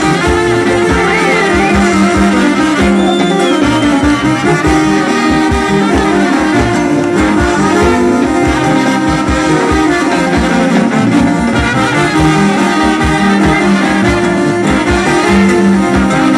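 Traditional Greek Macedonian brass-band dance music (chalkina), with horns playing the tune over a steady drum beat.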